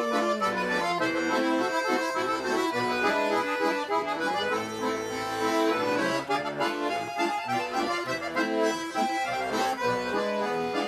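Accordion playing an instrumental interlude of a Russian folk song between sung verses. A singer's last note wavers and slides down to its end about half a second in.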